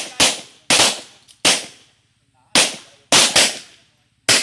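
Pistol fire from several shooters on a firing line: about seven sharp shots at uneven intervals, each trailing off briefly.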